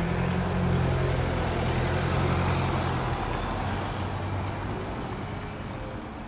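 Cars rolling slowly past on cobblestones: tyre noise over a low steady hum, fading away as they go by.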